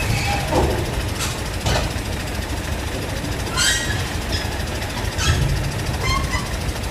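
Heavy truck's diesel engine running with a steady low rumble while hauling a train car on a low-loader trailer. Several short, sharp metallic squeals and clanks cut through it, at about one, one and a half, three and a half, and five seconds in.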